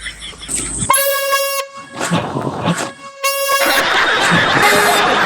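Hand-held air horn blasted twice in short, loud bursts about two seconds apart, followed by a loud, noisy rush of sound.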